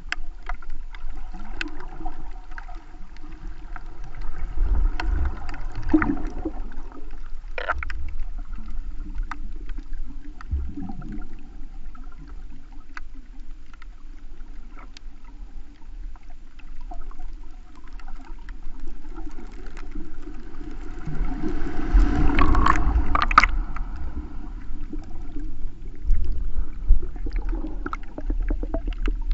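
Muffled underwater water noise heard through a GoPro's waterproof housing: a steady low sloshing rumble with scattered faint clicks, swelling louder about two-thirds of the way through.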